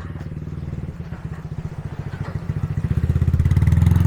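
Motorbike engine running at low revs close by, its rapid firing pulse growing louder as it comes nearer and loudest near the end.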